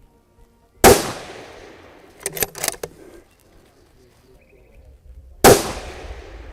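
Two centre-fire precision rifle shots about four and a half seconds apart, each trailing off in a long echo. A quick cluster of sharp clicks comes between them.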